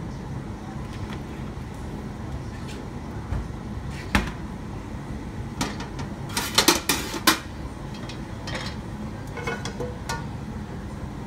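Metal cookware clanking: a steel wok and its domed lid knocked together several times in quick succession about six to seven seconds in, with a few lighter clicks before and after, over a steady low rumble.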